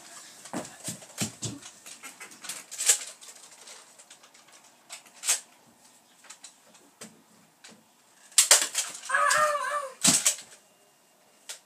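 Scattered sharp clicks, knocks and thumps of toy blasters and children moving about during a Nerf fight, with a short high-pitched cry about nine seconds in.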